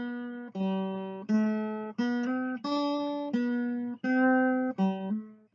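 Background music: an acoustic guitar playing a slow melody of single plucked notes, each ringing and fading before the next.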